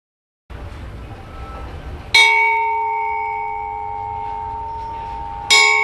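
A Burmese spinning gong, a flat bronze plate, struck twice: about 2 seconds in and again near the end. Each stroke rings on in a few clear, steady tones that fade slowly.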